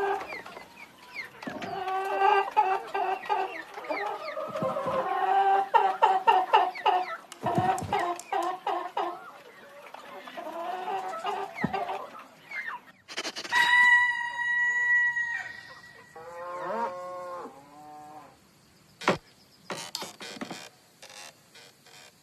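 Fowl clucking in quick runs of short calls, then a longer held call and a few falling calls, with a sharp click near the end.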